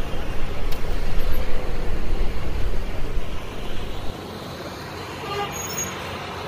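Street traffic noise: a strong low rumble of passing vehicles that drops suddenly about four seconds in to a quieter steady hum, with a brief pitched sound a little later.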